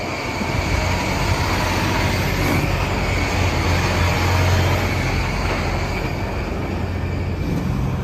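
Semi truck with a trailer driving past: a steady diesel engine hum under tyre and road noise, loudest about halfway through and easing off toward the end.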